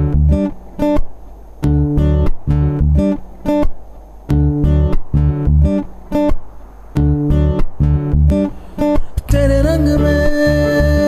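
Song soundtrack: acoustic guitar chords strummed in a rhythmic, stop-start pattern over bass. A long held note with a slight waver comes in near the end.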